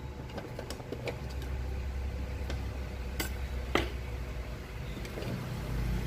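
A couple of sharp metal clicks from locking pliers being set on a blender's motor-shaft drive coupling, over a steady low rumble that lasts throughout.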